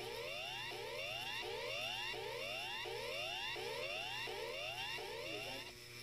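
Australian emergency alert tone, the Standard Emergency Warning Signal: a siren-like whoop that rises in pitch, repeated about every three-quarters of a second, with a short high steady tone between sweeps. It stops shortly before the end.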